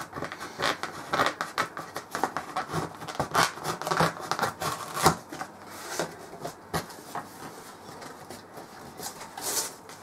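Scissors cutting through packing tape on a cardboard box, followed by cardboard flaps and boxes being pulled open and lifted out: a run of irregular scrapes, rustles and knocks that thins out toward the end.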